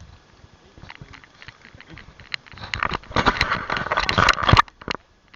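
Rustling and crinkling handling noise with scattered sharp clicks, loudest for about two seconds in the middle.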